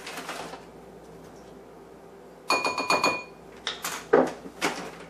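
Kitchen utensils clinking on a countertop: a brief rustle of the granulated Splenda bag at the start, then a metal spoon clinking with a short ring about halfway through, followed by several sharp knocks and rattles as spice containers are handled and set down.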